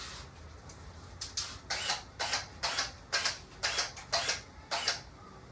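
A run of about seven short scraping strokes, roughly two a second, which stop about five seconds in.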